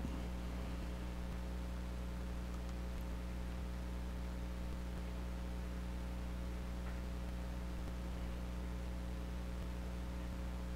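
Steady electrical mains hum: a low, constant buzz with a stack of fainter higher tones above it and a faint hiss.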